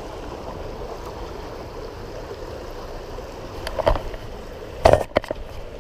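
Small creek running steadily, with a couple of brief sharp noises near the end, the loudest about five seconds in.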